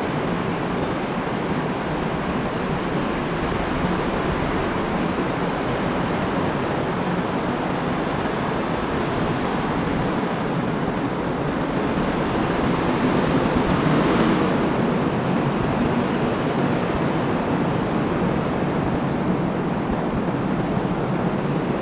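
Steady urban road traffic noise, with one vehicle passing and swelling louder a little past the middle.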